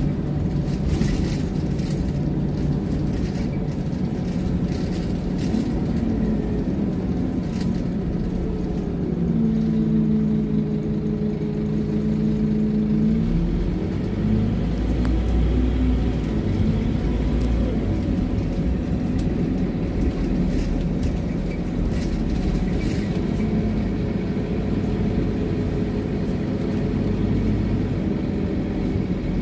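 Scania OmniLink single-deck bus running on the road, heard from inside the rear saloon: a steady diesel engine and drivetrain rumble. A steady hum holds for a few seconds in the middle, and a deeper rumble swells about fourteen seconds in, with light rattles and clicks from the interior.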